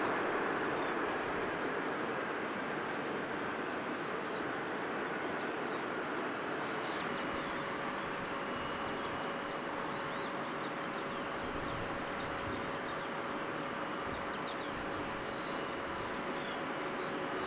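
Steady rushing jet engine noise from airliners at the airport, with a faint steady whine in it. Small birds chirp over it, more often in the second half.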